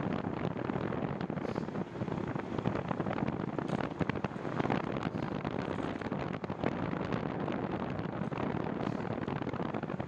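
Steady wind buffeting the microphone of a camera on a moving bicycle, a continuous rushing noise.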